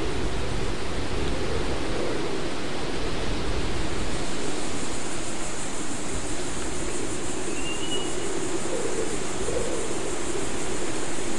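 Hurricane wind blowing: a steady rush of noise with a low, slowly wavering howl, and a brighter hiss that grows about four seconds in.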